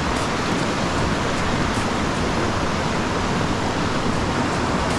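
Rushing water of a fast, rocky mountain stream: a steady, even hiss of current over rocks.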